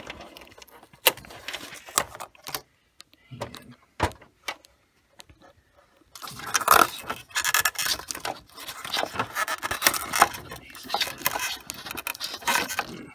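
Packing tape being peeled off a laser printer's scanner and glass. Scattered clicks and knocks come in the first half, then about seven seconds of crackling and scraping.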